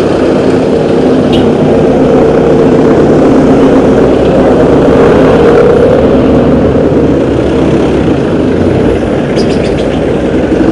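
Steady engine noise of slow, close street traffic, with jeepneys and a bus running alongside.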